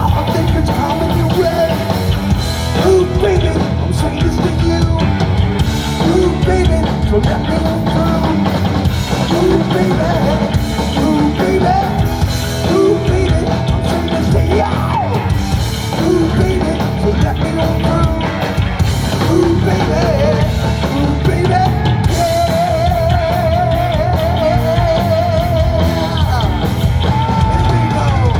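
Loud heavy rock music from a band: drum kit and electric guitars, with a melody line moving over them and a held note with vibrato near the end.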